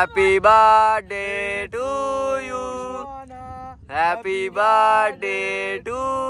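Singing: a voice holding long, pitched notes in phrases with short breaks between them, and a brief pause about three seconds in.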